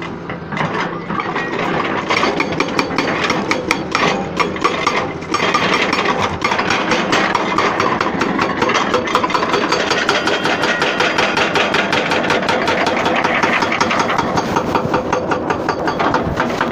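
Excavator working, its diesel engine running steadily with a rapid, even knocking of several strokes a second.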